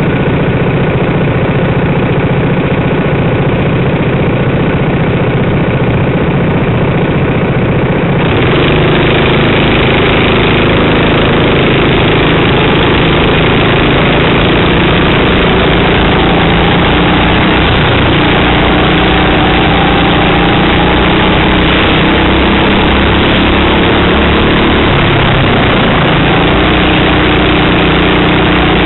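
Racing kart engine heard from an onboard camera mounted on the kart, running steadily at first, then opening up about eight seconds in to full throttle. The engine note then rises and falls as the kart speeds up on the straights and slows for the corners.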